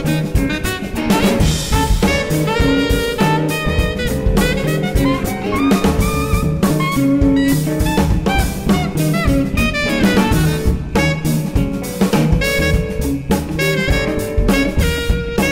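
Jazz septet playing: melody lines moving over a busy drum kit with steady cymbal and drum hits.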